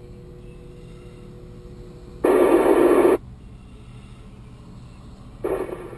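Two-way amateur radio speaker: a loud burst of static about a second long, a little over two seconds in, then another transmission opens with a hiss near the end.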